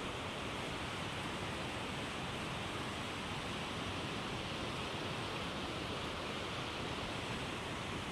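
Steady rushing of whitewater pouring through the gates of a small dam and churning in the pool below.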